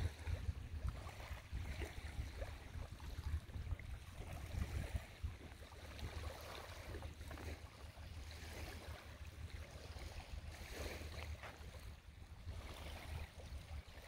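Wind buffeting the microphone outdoors: an uneven low rumble that swells and fades, with a faint hiss of open-air ambience above it.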